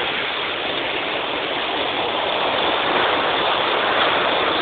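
Heavy downpour: a steady rushing hiss of rain and pouring water, growing a little louder about halfway through.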